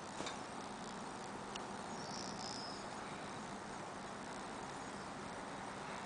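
Quiet evening garden ambience: a steady low hum and hiss, with a short high-pitched chirping about two seconds in and a couple of faint clicks near the start.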